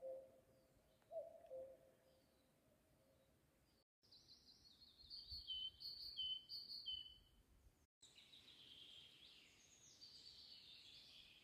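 Faint birdsong in forest. A low two-note call, the second note lower, comes twice in the first couple of seconds, then quicker, higher songbird phrases follow. The sound drops out briefly twice.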